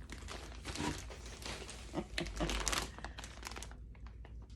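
Yarn packaging crinkling and rustling as it is handled, with small irregular crackles, stopping about three and a half seconds in.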